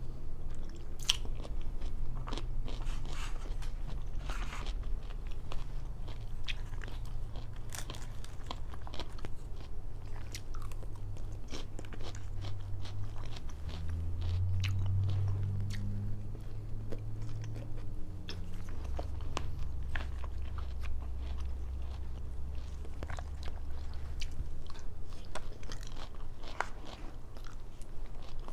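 Close-miked chewing and biting of Japanese food (sushi, sashimi, tempura, edamame), with many short crisp mouth clicks and crunches throughout over a low hum that swells about halfway through.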